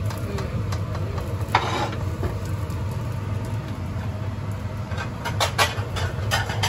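Cooking at a gas hob: a steady low rumble, a short hissing burst about one and a half seconds in, and a few quick scrapes and clicks of a spatula against the frying pan near the end.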